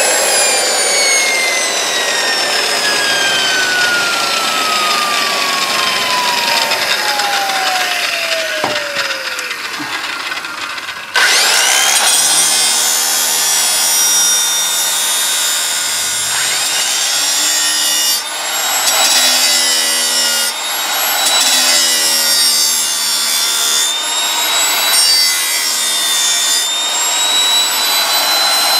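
Electric angle grinder spinning down with a long, steadily falling whine, then switched back on with a sudden loud rush about eleven seconds in. It grinds the edge of a riding mower's steel blade to sharpen it in several passes, its motor pitch shifting as the disc bites.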